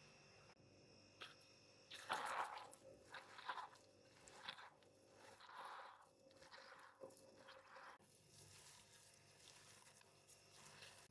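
A run of short crunching sounds, several in a row, between about two and eight seconds in, from food being handled or cut.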